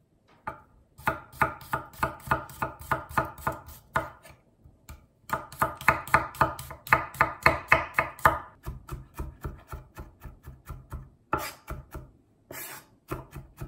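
Chef's knife chopping and mincing garlic cloves on an end-grain wooden cutting board: quick, rhythmic knife strikes on the board, about five a second. They come in two runs with a short pause about four seconds in, and go softer and more spaced in the last few seconds.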